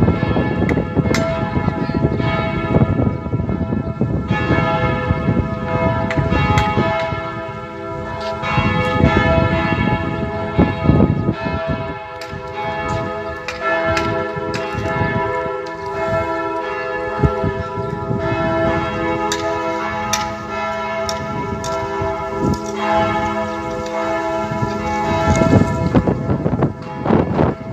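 Parish church bells ringing: several bells struck over and over, so that their tones overlap and hang on in one continuous peal.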